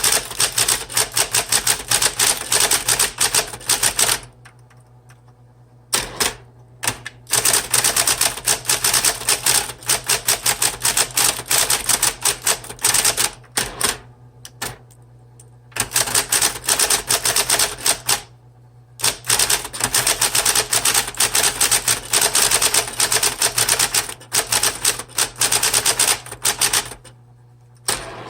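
1970s Smith Corona Deville electric typewriter being typed on in fast runs of keystrokes, broken by a few pauses of a second or two. The machine's motor hums steadily underneath, through the pauses as well.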